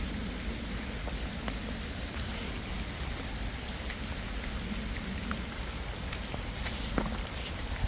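Steady rain falling, an even hiss with scattered sharper taps of single drops.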